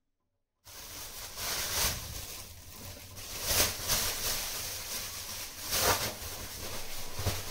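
A thin plastic bag rustling and crinkling in uneven swells as it is handled. A brief moment of silence comes first.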